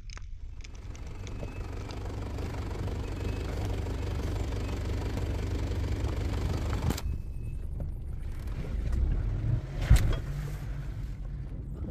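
Muddy off-road vehicle driving on a dirt track: a steady engine rumble with tyre noise. About seven seconds in the sound turns duller, with the rumble still there, and a single sharp knock comes about ten seconds in.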